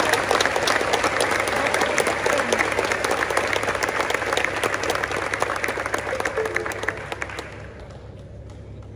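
A large audience applauding, many hands clapping together; the applause dies away about three-quarters of the way through.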